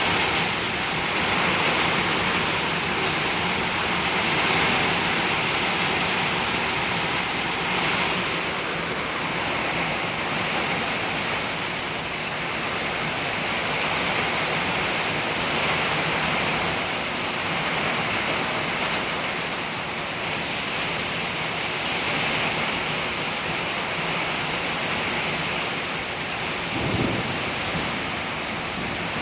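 Heavy rain pouring down steadily, an even rushing hiss. A brief low thump near the end.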